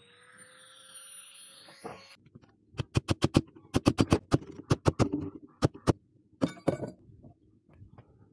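Steel hammer blows on a punch driving the pivot rivet out of a pair of pincers: sharp metallic strikes in quick clusters, about fifteen to twenty in all, from about three seconds in to near seven seconds. A faint rising whine is heard in the first two seconds.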